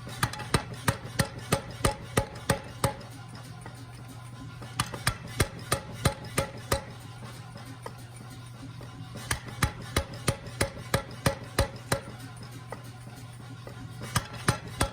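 1929 Nazel 3B power hammer with a 280-pound ram, its dies striking hot 2-inch square steel bar in rapid runs of about three blows a second while drawing out a finial. There are four runs separated by short pauses, with a steady low hum underneath.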